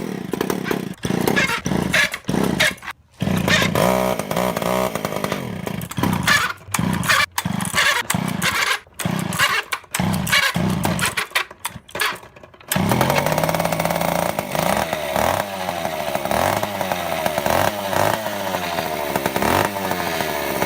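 Small two-stroke chainsaw engine driving a homemade motorized bike, revving in short bursts broken by abrupt cuts, then running continuously from about two-thirds of the way through, its pitch rising and falling as the throttle changes.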